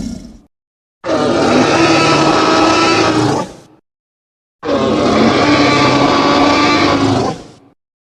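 Jurassic Park Tyrannosaurus rex roar sound effect: two long roars of about three seconds each with silence between, after the tail of an earlier roar fades out at the start.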